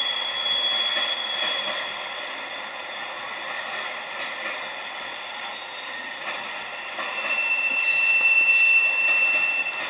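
Freight train cars rolling past with a steady rolling clatter of steel wheels on rail. A high steady wheel squeal fades out in the first second or two, and a louder, slightly lower squeal comes in about seven seconds in and lasts about three seconds.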